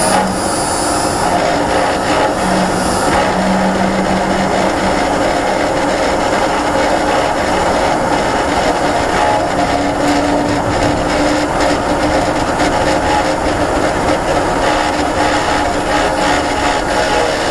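Renault ZOE R240 electric car coasting, with steady driving noise and a rattle from the motor's reduction gear that comes only when the motor is neither pulling nor braking, in neutral or coasting in D.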